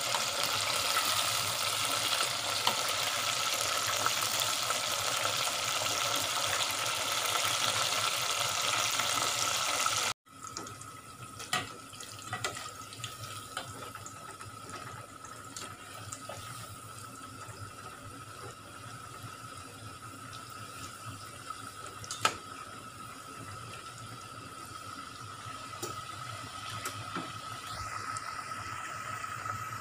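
Chicken nuggets deep-frying in hot oil in a stainless steel saucepan: a steady sizzle, loud for about the first ten seconds, then quieter after an abrupt cut. A spatula stirring the pieces clicks against the pan now and then, loudest once about two-thirds of the way through. A faint steady whine runs underneath.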